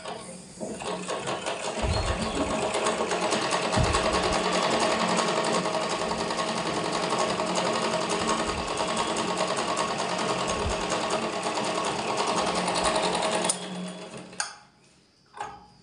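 Interlock (overlock) sewing machine running steadily as it serges the edge of a handkerchief: it speeds up over the first couple of seconds, runs evenly, and stops about thirteen and a half seconds in, followed by a couple of short clicks.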